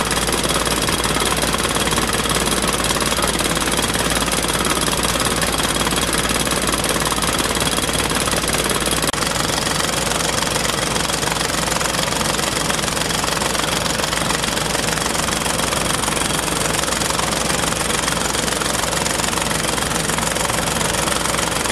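Horizontal directional drilling rig running steadily under load during drilling, a dense continuous mechanical din of engine and drilling noise whose tone shifts slightly about nine seconds in.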